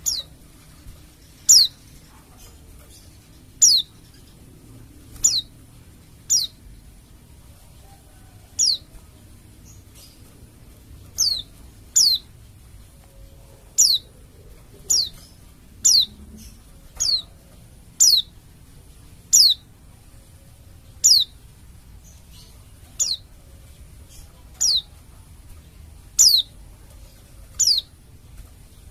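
White-eye (pleci) giving short, sharp, high calls, each sweeping quickly downward in pitch, repeated about every one to two seconds.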